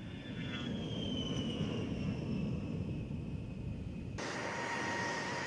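Fairchild Republic A-10 Thunderbolt II's twin General Electric TF34 turbofan engines on the takeoff run: a high whine falling in pitch over a rumble as the jet passes and lifts off. About four seconds in, the sound cuts off abruptly and a steadier jet whine with two held tones takes over.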